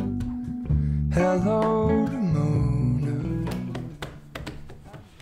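Background music: a song on acoustic guitar with a voice singing, fading out near the end.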